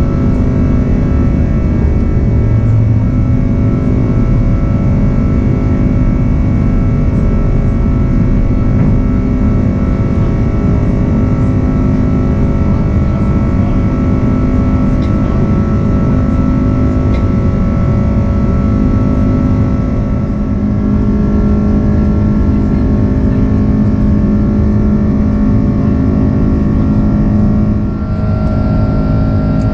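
Airbus A330-200 turbofan engines at climb thrust, heard inside the cabin from a window seat over the wing: a loud, steady rush with several steady whining tones on top.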